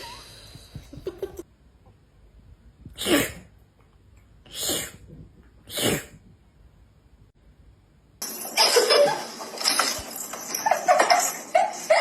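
Three short, sharp sneezes, about a second and a half apart. From about eight seconds in, a louder, busy mix of noise with short pitched sounds takes over.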